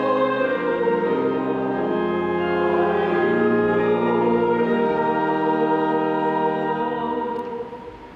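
Church organ and congregation singing slow, sustained chords of a hymn, dying away on a final held chord near the end.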